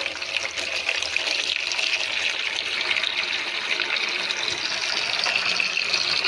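Stream of tap water pouring steadily into a plastic tub and splashing into the water already collected in it.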